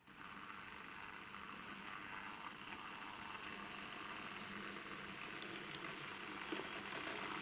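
A motorised 00-scale model tram running on track: a steady whirr of its small electric drive and wheels with a faint hum, growing slowly louder as it comes closer.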